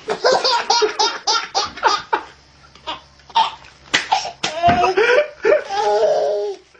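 People laughing hard in quick, repeated bursts, with a longer drawn-out stretch of laughter in the second half.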